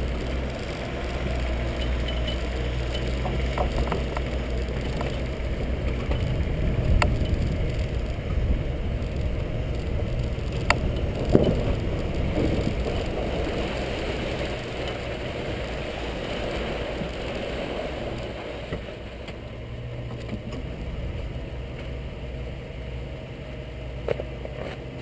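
Engine of a handlebar-steered off-road vehicle running steadily as it drives over a rutted dirt track, with a few sharp clicks and knocks from the ride.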